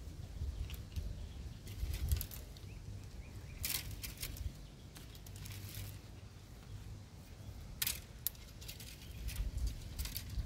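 Leaves and thin twigs rustling and crackling in scattered short bursts as a young monkey climbs and swings through a small tree, over a low steady rumble.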